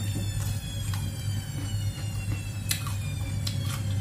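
A washing machine running, with a steady low hum and a high whine that slowly falls in pitch. A few short crisp crunches of raw cucumber being chewed sound over it in the second half.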